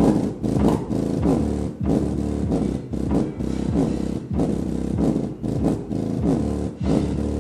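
Bass-heavy electronic track played loud through an Infinity Primus 1270 12-inch subwoofer in a large enclosure. Falling pitch sweeps repeat on a steady beat, about every 0.6 seconds.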